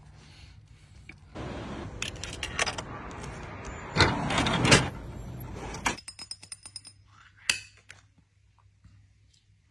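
Clatter and knocks at a vending machine's metal retrieval flap as a drink is dispensed and taken out, the loudest two knocks about four seconds in. A run of quick metallic clicks follows, then one sharp snap as the pull-tab lid is peeled off a glass cup drink.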